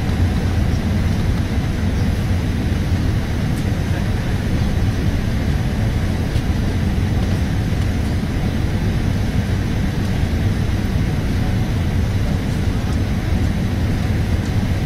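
Steady low rumble of airflow and engine noise inside the cabin of an Airbus A380 descending on approach to land.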